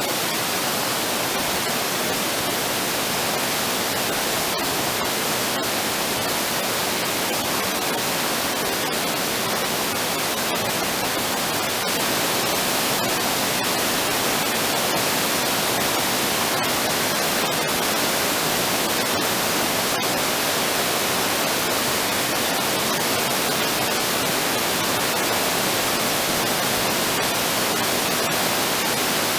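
Steady rushing of a waterfall, an even hiss of white water that does not change.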